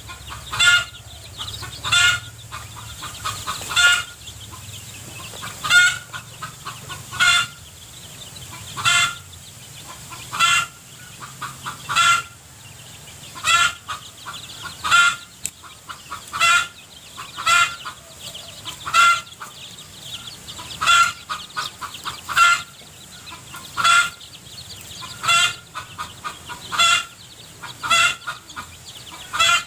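Chicken calling over and over, one short pulsing call about every second and a half.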